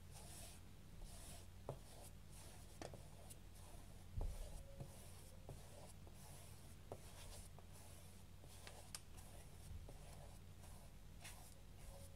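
Faint swishing of a paintbrush loaded with acrylic paint stroking back and forth over a cardboard box lid, a little over one stroke a second, with a few small clicks and a knock about four seconds in over a low steady hum.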